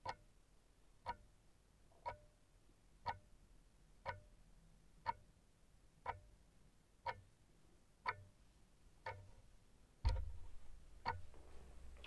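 A clock ticking steadily, about once a second, with a low rumble coming in near the end.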